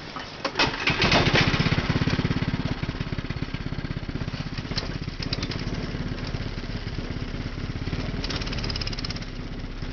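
Go-kart's small engine starting about a second in, running up loudly for a moment, then settling to a steady idle.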